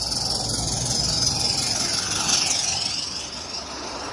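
A G-scale live steam model locomotive and its freight cars rolling past close by on 45 mm track: a steady steam hiss over a low rumble of wheels on rail, loudest a little past two seconds in as the train goes by.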